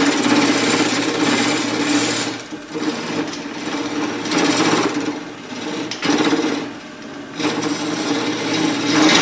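Wood lathe spinning a cherry burl blank with a steady hum while a turning tool cuts into the wood in about four passes, each a rough, scraping cut of one to two seconds.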